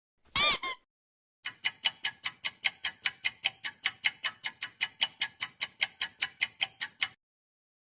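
Clock-ticking sound effect: a steady run of sharp ticks at about five a second that stops shortly before the end. It is preceded, about half a second in, by a brief pitched blip.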